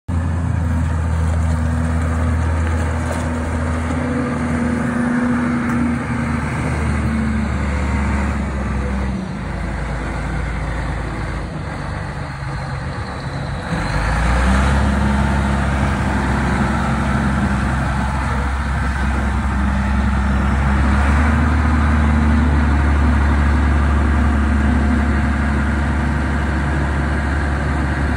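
Diesel engine of a 1998 Moxy Douglas MT 30 R articulated dump truck running with a steady low note. It drops back for a few seconds around the middle, then comes back louder about halfway through and stays there.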